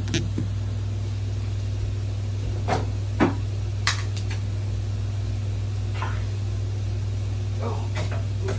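A steady low hum with a faint hiss, and a scattering of short knocks and clunks from kitchen cupboards and containers being handled, the sharpest about three seconds in.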